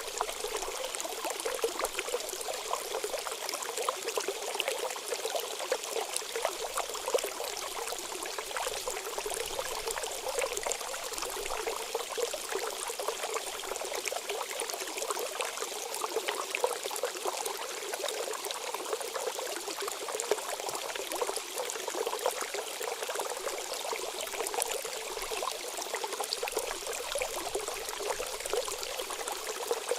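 Fountain water falling steadily into a pond, a continuous hiss of many small splashes without pause.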